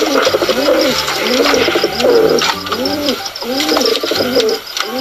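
Pigeon cooing over and over, a steady run of low coos that each rise and fall, about one or two a second.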